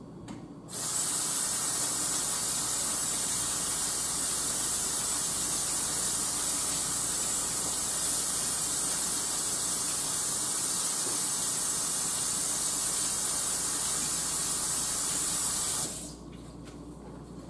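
Kitchen sink faucet running, a steady hiss of water as hands are washed under it; it comes on about a second in and shuts off abruptly near the end.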